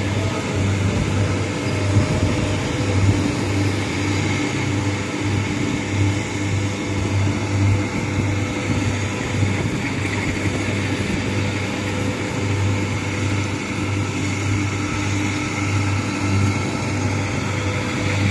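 Rice combine harvester's diesel engine and threshing machinery running steadily as it cuts rice in a soft, muddy paddy: a continuous low drone that throbs unevenly, with a steady whirring hum over it.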